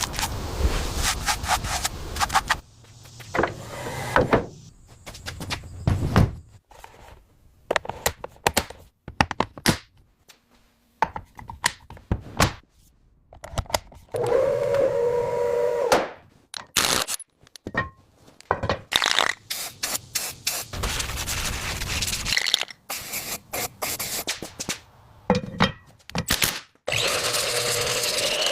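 A string of short, abruptly cut workshop sounds: knocks, scrapes and hand-tool noise from work on a go-kart.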